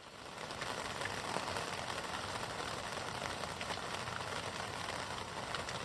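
Steady rain falling: an even hiss with scattered drop ticks, fading in at the start.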